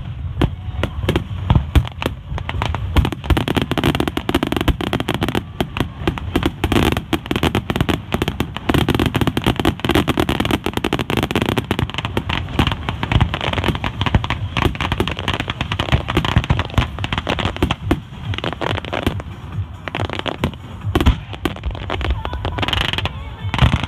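Fireworks display with aerial shells bursting and crackling in a rapid, near-continuous barrage.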